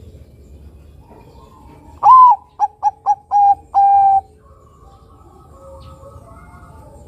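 Caged zebra dove (perkutut), a Bangkok-local crossbred bird, singing one phrase about two seconds in: a loud opening coo, three quick short notes, then two longer, slightly lower coos.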